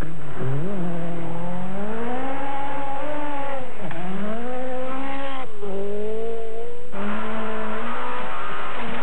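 Peugeot 405 Turbo 16 race car's turbocharged four-cylinder engine at full race revs, pitch climbing and falling as it accelerates, with sharp drops in revs at lifts or gearchanges about four and five and a half seconds in.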